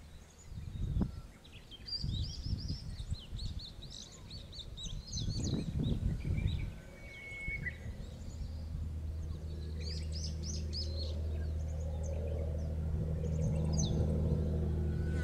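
Small birds chirping and twittering, with gusts of wind buffeting the microphone in the first half. From about halfway a low, steady engine hum grows slowly louder and becomes the loudest sound.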